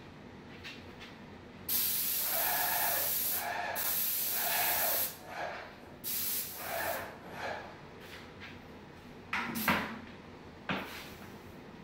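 Airless paint sprayer's gun hissing as paint is sprayed onto a popcorn ceiling: one long burst starting about two seconds in, then shorter bursts as the trigger is pulled and released. A couple of sharp knocks near the end.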